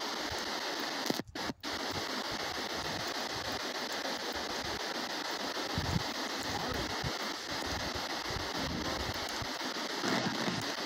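S-Box ghost scanner (a radio-sweeping spirit box) giving out a steady hiss of radio static, cutting out twice briefly a little over a second in.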